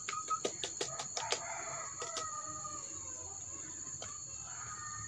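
A spoon clinks and scrapes against a plastic bowl in a quick run of clicks during the first second or so. Then a rooster crows faintly in the distance, over a steady high insect drone.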